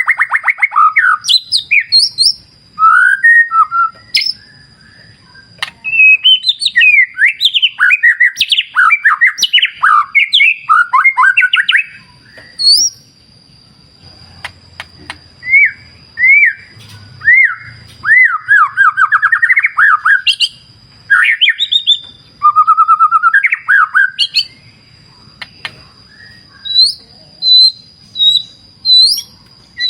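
White-rumped shama (murai batu) singing: loud bursts of varied whistles, fast trills and chattering phrases with short pauses between them, over a thin steady high-pitched tone.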